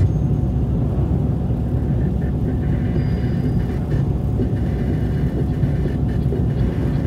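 Steady low rumble of a car driving along a snow-covered road, the engine and tyres heard from the moving car.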